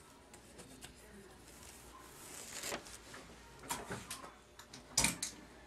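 Tape being pulled and pressed down by hand, with rustles and a few light clicks and knocks as the paper and glass cutting board are handled; one knock about five seconds in is the loudest.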